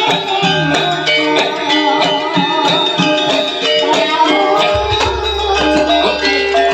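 Music with melodic instruments and drums, a busy run of changing notes; a deep low note comes in and holds near the end.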